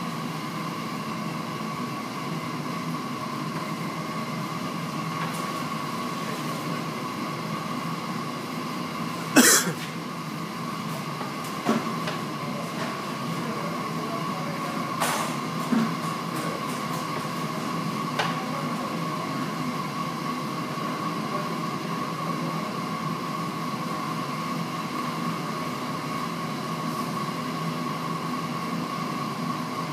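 A steady machine hum with a constant high tone, broken by a few sharp clinks and knocks between about a third and two thirds of the way in, the first the loudest.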